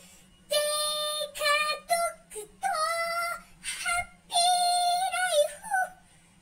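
A high-pitched voice singing a string of short phrases with held notes, broken by brief pauses.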